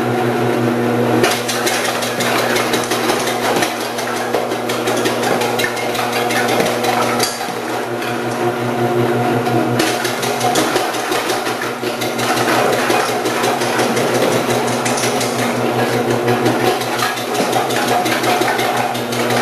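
Omcan HLC 300 vegetable slicer's electric motor running steadily, with a rapid clatter as its 8 mm slicing disc cuts carrots.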